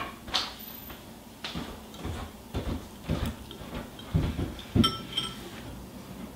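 Metal spoons clinking and scraping against ceramic soup bowls, with scattered soft knocks; one sharper, ringing clink about five seconds in.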